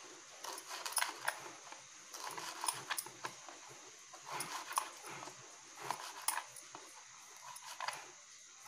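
Kitchen knife finely chopping urad bean leaves on a metal tray: irregular light taps and clicks as the blade strikes the tray.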